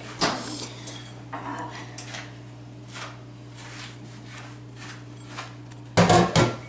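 Kitchen clatter: scattered light knocks and clinks of dishes and utensils over a steady low hum, then a loud clatter near the end as a glass baking dish is set down in a stainless steel sink.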